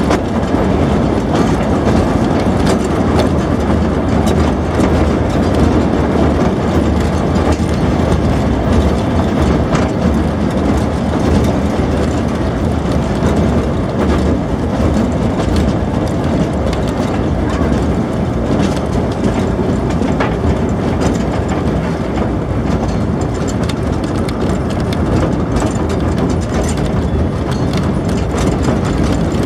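Narrow-gauge field-railway train running, heard from its carriage: steady wheel-and-rail noise over a low hum, with occasional clicks from the track.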